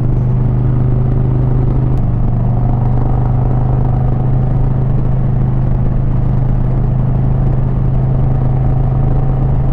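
Motorcycle engine running steadily at cruising speed along a winding road, its even low note mixed with wind and road noise.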